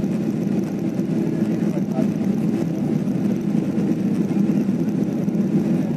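Jet airliner's engines running at high power during takeoff and climb, heard inside the passenger cabin as a steady low roar.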